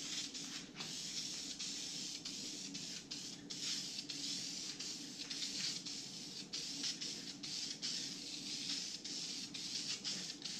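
Aerosol spray-paint can hissing in a string of short bursts with brief breaks between them.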